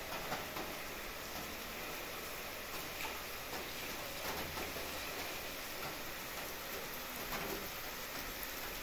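Steady rain falling: an even hiss with faint, scattered drop ticks.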